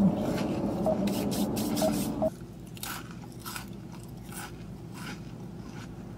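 A person chewing a crunchy snack close to the microphone: a run of short crunches and mouth clicks. A steady tonal background sound stops abruptly about two seconds in.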